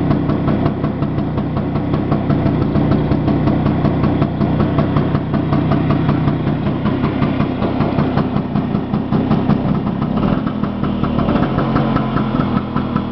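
1966 Vespa Sprint 150's single-cylinder two-stroke engine idling, with a steady run of firing pulses. Its tone shifts slightly about ten seconds in.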